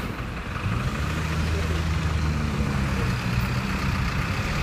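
Street traffic, with a vehicle engine's low steady hum that comes up about a second in.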